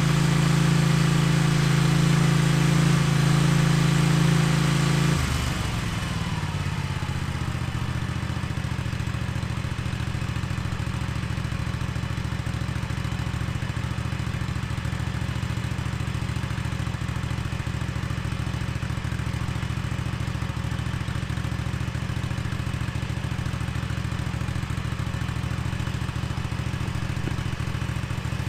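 Engine running fast and steady, then throttled back about five seconds in, its pitch sliding down, and running on at a lower, steady idle.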